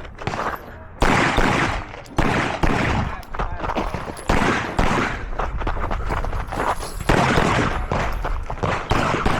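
A series of handgun shots fired at irregular intervals, some in quick pairs, each followed by a short echo: a competitor shooting a course of fire in an IDPA pistol stage.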